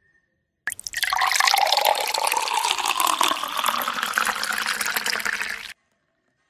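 Sugarcane juice poured in a steady stream into a glass tumbler. It starts about a second in and cuts off suddenly near the end, its pitch rising as the glass fills.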